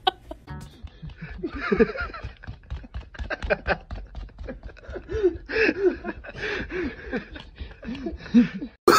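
A person giggling and snickering under their breath in short repeated bursts, with small clicks and taps in between.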